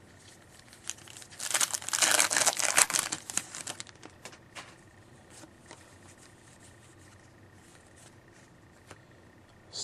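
Trading card pack wrapper being torn open and crinkled: a dense crackly rustle from about one to four seconds in, then faint scattered clicks of cards being handled.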